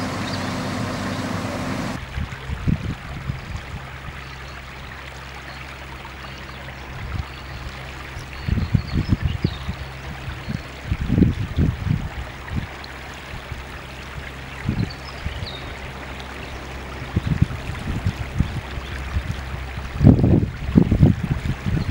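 A car engine idles for about the first two seconds. Then, outdoors beside floodwater on a road, low rumbling buffets of wind on the microphone come and go over a steady low hum.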